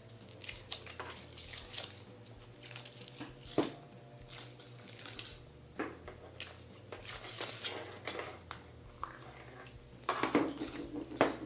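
Kinder Surprise egg being unwrapped and handled: the foil wrapper crinkles on and off, with scattered small clicks and knocks from the chocolate shell and plastic capsule.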